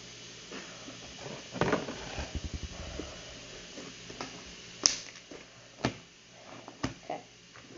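Scattered light knocks and clicks of things being handled, with a short quick run of low rattling pulses about two seconds in and a sharp click near the five-second mark.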